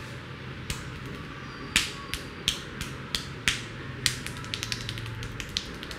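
Sharp snapping pops from an Indian barber's hands during a head massage. They come one at a time at first, about two a second, then in a quick run of smaller pops near the end.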